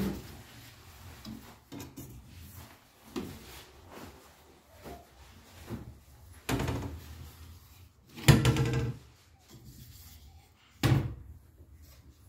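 Wooden kitchen wall-cabinet doors being handled, opened and shut: a series of separate knocks and bumps with light rubbing between them, the loudest about eight seconds in.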